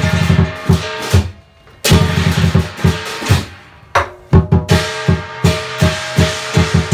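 Live Chinese lion dance percussion: a drum beaten in fast runs with cymbals clashing and a gong over it. It breaks off briefly about a second in and again just before four seconds, then settles into a steady beat of about three strokes a second.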